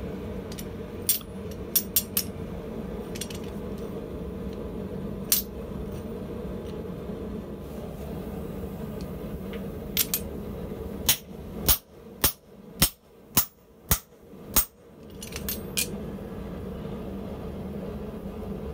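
Hand hammer striking the top die of a blacksmith's guillotine tool to fuller a red-hot round bar: a few light metal clinks as the dies and bar are set, then about seven sharp blows a little over half a second apart, over a steady hum.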